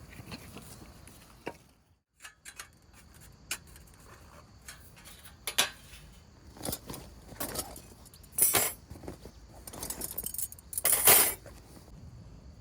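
Camp cookware and utensils being handled: a string of light clinks and clatters, metal and dishes knocking together, with two louder scraping clatters in the second half.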